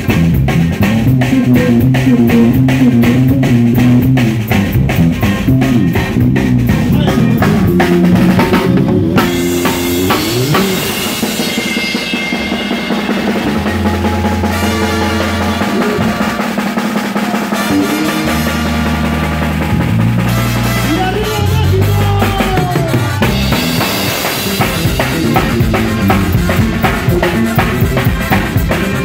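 Live band music: a drum kit keeps a steady beat with snare and bass drum under an electric bass guitar. In the middle the drumming thins out and the bass holds long low notes, then the full beat comes back near the end.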